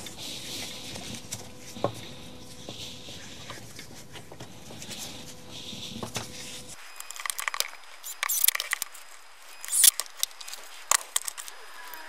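Plastic housing of a Makita UC3541A electric chainsaw and its power cable being handled: scattered light clicks and knocks of plastic, turning into a quick run of clicks and rattles in the second half, the loudest near the end.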